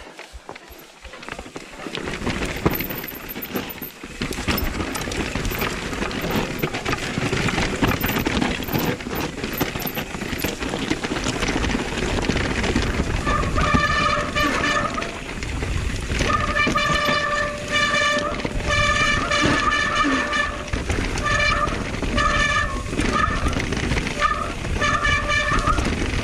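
Mountain-bike tyre noise and chassis rattle on a rough trail descent. From about halfway, the e-bike's disc brakes howl in repeated bursts each time they are applied.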